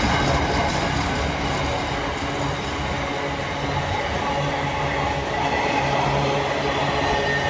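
Container flat wagons of a freight train rolling past, a steady rumble of steel wheels on the rails, with a faint high wheel squeal creeping in near the end.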